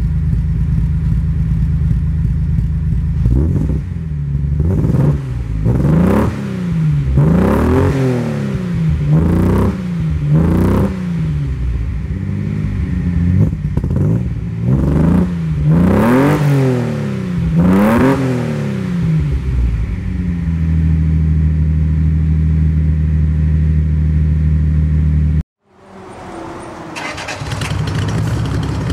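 Datsun 240Z's L24 straight-six running through a Fujitsubo Legalis R exhaust: idling, then blipped repeatedly in quick free revs, each rising and falling back, before settling to a steady idle again. After a sudden cut near the end, a second L24 240Z with MSA headers and a Twice Pipe exhaust idles.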